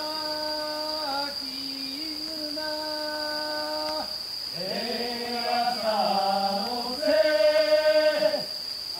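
Voices chanting in long held notes that step from one pitch to the next. A single voice leads at first, and several voices chant together from about halfway, loudest near the end. A steady high insect trill runs underneath.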